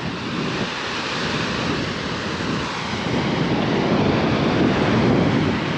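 Gentle ocean surf washing onto the beach on a calm day, a steady wash that swells slightly about halfway through.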